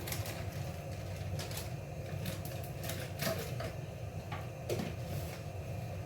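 Soya beans roasting in a pan, giving irregular light clicks and ticks over a steady low hum.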